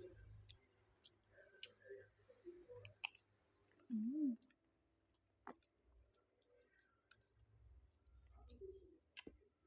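Faint, scattered small clicks and taps, with a brief low vocal sound that rises and falls about four seconds in.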